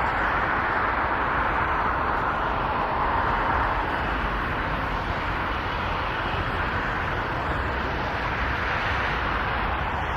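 Jet engines of a Boeing 787-9 airliner on final approach, a loud steady roar that eases slightly near the end.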